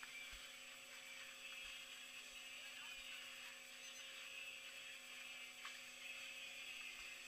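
Faint steady hum with a few soft, low bumps.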